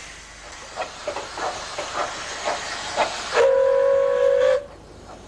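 RH&DR No.5 Hercules, a 15-inch gauge 4-8-2 steam locomotive, getting under way with steam hissing and exhaust beats about two a second. A little past halfway it gives one steady whistle blast of just over a second, then the beats carry on.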